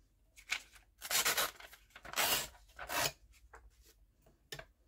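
Sheet of double-sided origami paper being torn along the edge of a steel ruler, in three or four short rips over about three seconds.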